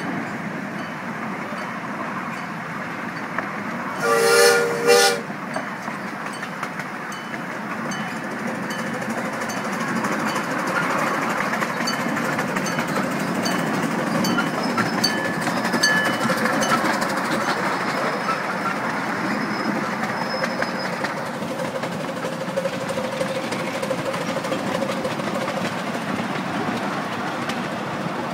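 Miniature 7¼-inch gauge steam locomotive running along the track, with wheels clicking steadily over the rail joints. About four seconds in its whistle sounds twice, a longer blast then a short one.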